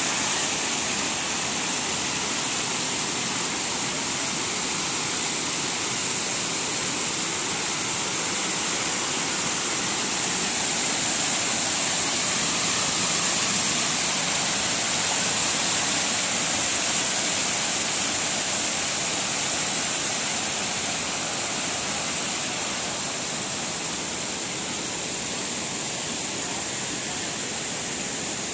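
Steady rush of falling, splashing water, as from a mountain waterfall, easing a little near the end.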